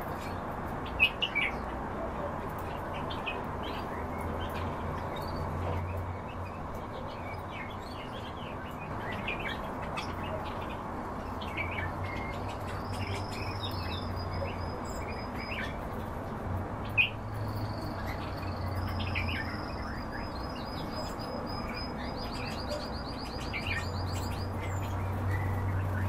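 Several caged songbirds chirping, with scattered short calls throughout and quick, rapidly repeated trills in the middle and later part, over a steady low hum. Two sharp clicks stand out, about a second in and again later.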